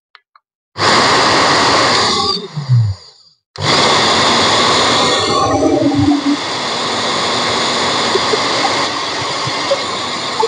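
Khind blender motor running with no jug fitted, switched on with its selector knob. It starts abruptly about a second in, winds down after a second and a half, then is switched on again and runs steadily. This is a test run after its 1N5408 diode was replaced.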